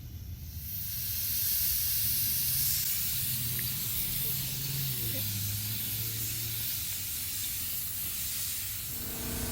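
Automotive paint spray gun spraying base coat, a steady hiss of compressed air and atomised paint that starts about half a second in and stops just before the end, with a low hum underneath.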